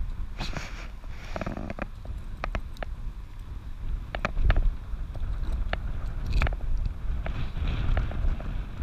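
Low wind rumble on a camera strapped to a dog's back, with scattered sharp clicks and rustles as a leash and the metal hardware of a nylon collar are handled and clipped together.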